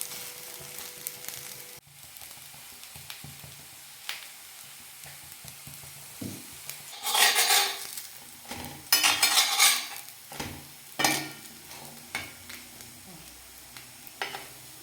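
Semolina-batter pieces sizzling in a little oil on a hot dosa griddle, a steady frying hiss. A few louder scrapes and clatters come in the middle, as the pieces are turned over on the griddle.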